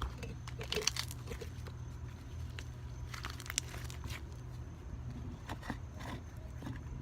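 Slime being handled by hand, giving scattered sticky crackles and clicks, the loudest about a second in and halfway through, over a steady low hum.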